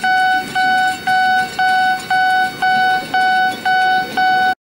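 Electronic railroad crossing warning signal beeping about twice a second, each beep a steady mid-pitched tone; it cuts out briefly near the end, then starts again.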